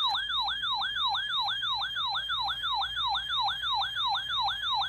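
Weather radio alert alarm: an electronic siren tone that sweeps quickly downward in pitch and repeats about three and a half times a second. It announces an incoming warning broadcast, here a flash flood warning.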